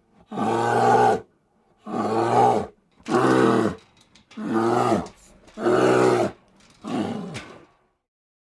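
A bear roaring six times in a row, about one call a second, each call under a second long and often dropping in pitch at its end.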